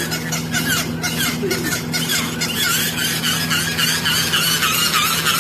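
Squeaky toy squeaking over and over in a quick, wavering run of short high squeaks, with a steady low hum underneath.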